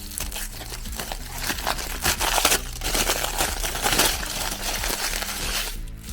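Meat grinder crushing and crackling as material is forced through it, loudest in the middle and dropping off shortly before the end, with background music underneath.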